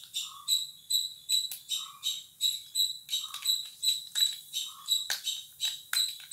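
Mustard seeds popping in hot oil in a steel pan: a quick run of sharp pops with a brief metallic ring, growing denser and more irregular near the end. This is the tempering stage, when the seeds burst open in the hot oil.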